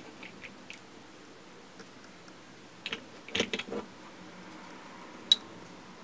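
Handling noise from an UltraFire C8 flashlight being picked up and turned in the hand: a few light clicks, a cluster of knocks and rattles near the middle, and one sharp click about five seconds in.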